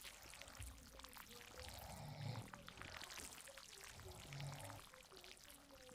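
Sleeping person snoring softly, a low breath about every two seconds, over a faint steady patter of rain.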